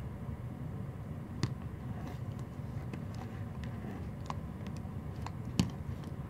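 Samoyed puppy gnawing a hard plastic chew bone: scattered sharp clicks of teeth on the bone, with a louder click about a second and a half in and the loudest near the end, over a low steady background rumble.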